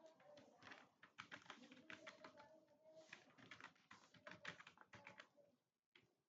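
Faint, rapid typing on a computer keyboard: a quick run of key clicks that stops about five and a half seconds in, followed by a couple of single clicks near the end.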